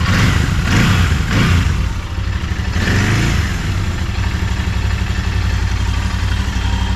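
Royal Enfield Continental GT 650's parallel-twin engine running, revved in a quick run of three throttle blips in the first two seconds and once more about three seconds in, then settling back to a steady idle.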